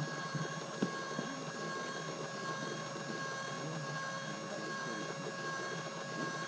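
Electric motor of a small radio-controlled boat running at a steady speed: a constant, even whine with several overtones.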